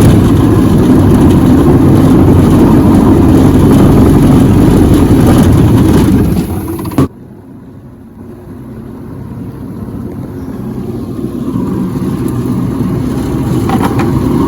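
Boat outboard motor running loudly with the boat underway. The sound eases off, drops away sharply about seven seconds in, then builds back up gradually.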